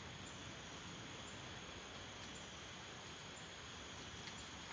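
Quiet outdoor ambience: a steady hiss with a faint, high, steady insect drone and a few faint light ticks.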